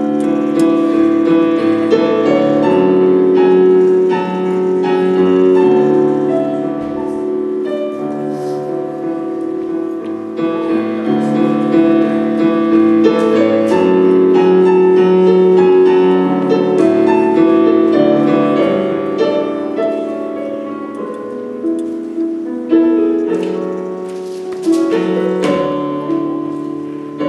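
Solo piano music played on a digital stage keyboard: sustained chords with a melody over them.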